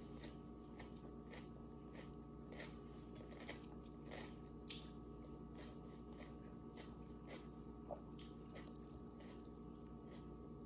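A person chewing food with the mouth closed: faint, regular wet mouth clicks, a little under two a second.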